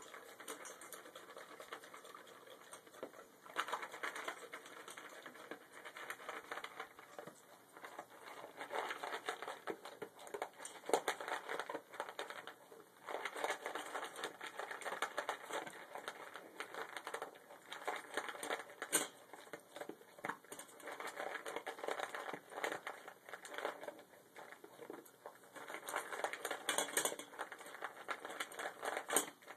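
Yellow Labrador retriever crunching dry kibble from a stainless steel bowl: rapid, irregular crunching and clicking that comes in spells with brief pauses.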